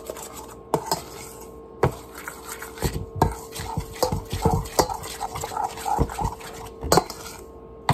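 A utensil stirring dry cornbread mix and protein powder in a stainless steel bowl, with sharp irregular clinks against the metal every second or so. A steady faint hum runs underneath.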